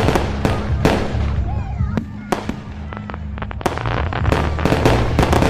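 Fireworks going off: a rapid, irregular series of bangs and crackles, with a dense run of crackling a little past the middle.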